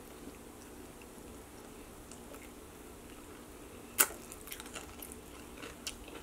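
Close-up mouth sounds of eating a bone-in chicken wing: quiet chewing at first, then one sharp bite about four seconds in, followed by small wet chewing clicks.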